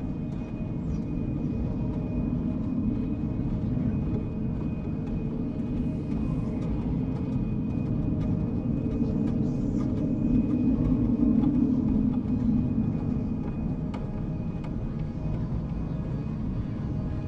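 Dark ambient drone: a dense low rumble with faint sustained tones above it, swelling a little louder about ten seconds in.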